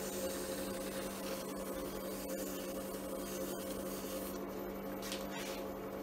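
Small wood lathe running steadily with a constant hum as it spins a pen blank.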